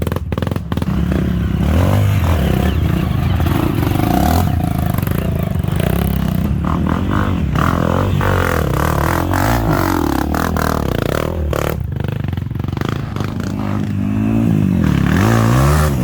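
Trail motorcycle engine revving up and down as it rides over rough ground, with clatter and knocks from the bike.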